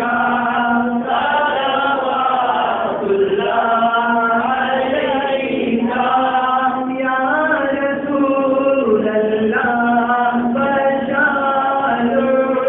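A group of men chanting an Urdu naat with no instruments, a lead voice on a microphone with the others singing along, in long held notes.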